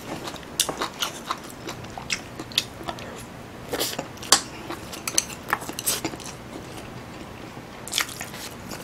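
Close-miked eating: chewing a mouthful of rice and squid stew, with scattered sharp wet clicks. About eight seconds in comes a bite into a cube of kkakdugi (radish kimchi).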